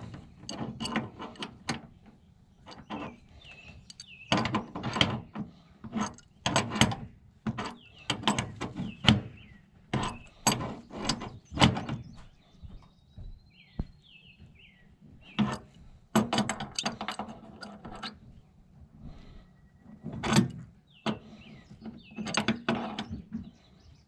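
Adjustable wrench on brass flare nuts at a mini-split outdoor unit's service valves: irregular metal clicks and clanks as the wrench is fitted, turned and repositioned to tighten the refrigerant line connections, with short pauses between.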